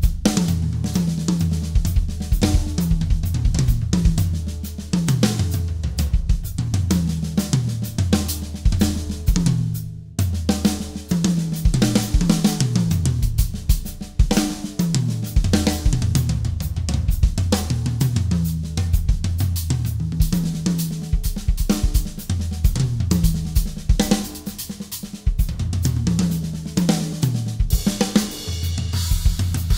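Yamaha Stage Custom drum kit played with sticks: rapid tom fills that step down in pitch from the rack toms to the floor toms, mixed with snare, bass drum and cymbals. A brief break comes about ten seconds in, and a cymbal wash rings over the strokes near the end.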